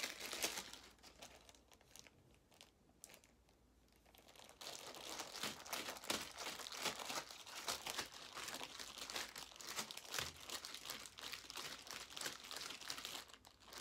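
Plastic zipper bag crinkling as it is shaken hard, the gummy candies inside being tossed to coat them in sour sugar. The shaking eases off about two seconds in and picks up again, steady and continuous, after about four and a half seconds.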